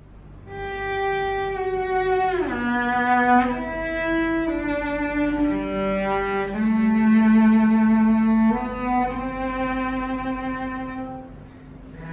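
Solo cello played with the bow: a slow phrase of held notes with a downward slide about two seconds in, dying away near the end. The cello carries an ebony tailpiece with built-in fine tuners, a heavy tailpiece that the shop says gives a thicker, more active tone.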